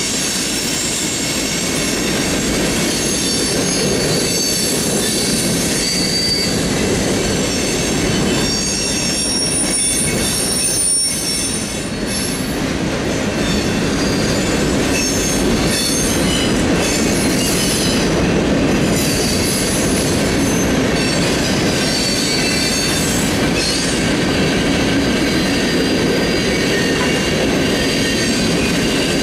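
Freight cars of a manifest train rolling steadily past, a continuous loud rumble of wheels on rail with high-pitched wheel squeal over it.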